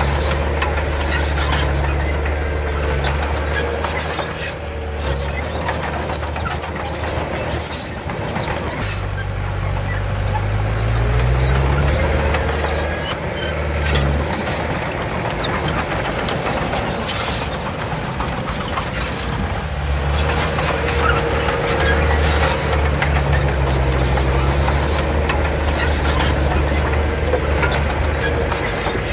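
Komatsu D31 crawler bulldozer working: its diesel engine runs under changing load and revs up about ten seconds in, with squealing and clanking from the steel tracks.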